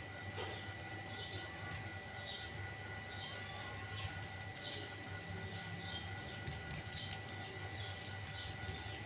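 Songbird calling a run of short, down-slurred chirps, about two a second, over a steady high whine and a low hum.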